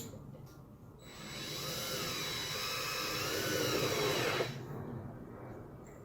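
Drill/driver motor whining for about three and a half seconds, its pitch wavering up and down, then stopping abruptly: typical of driving a screw into wood.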